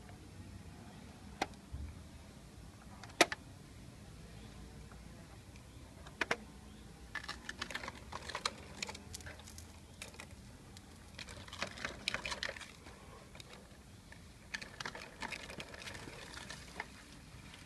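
Hard plastic clicks and rattles from a Bruder Valtra T191 toy tractor being handled: one sharp click about three seconds in, then bursts of quick, irregular clicking.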